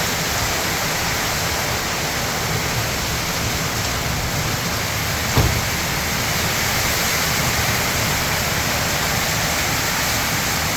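Very heavy rain pouring down as a steady, dense hiss, with one short knock about five seconds in.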